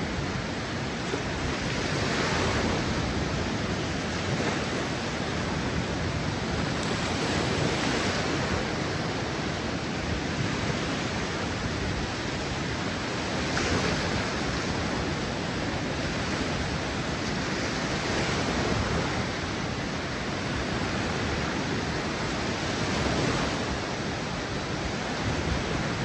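Small surf breaking and washing up onto a sandy beach: a continuous wash of water that swells every few seconds as each wave comes in.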